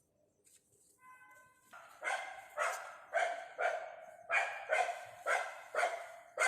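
A dog barking repeatedly, about nine short barks starting about two seconds in, roughly two a second.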